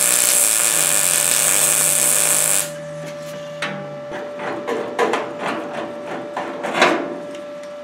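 MIG welder arc crackling steadily as it plug-welds sheet steel, stopping abruptly about two and a half seconds in. Then a run of metallic clicks and clatters as a locking clamp is worked on the panel.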